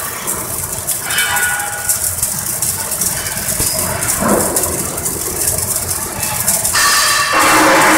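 Robotic arc welding by Yaskawa welding robots: a continuous crackling and spitting of the arc and spatter, louder for the last second or so.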